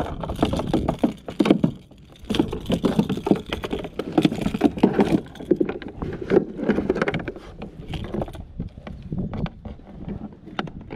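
Irregular knocks, thumps and rattles on a plastic fishing kayak's hull and deck as things are handled in the cockpit. They come thickest in the first half and thin out toward the end.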